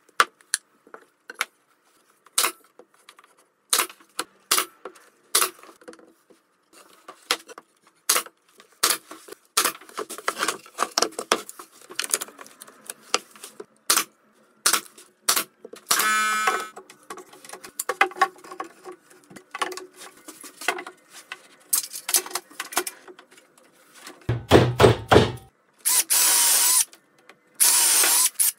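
Pine timber pieces and bar clamps knocked and clicked as a frame is fitted together on a bench, with a power drill running briefly partway through. Near the end a cordless drill bores into a timber leg in two runs.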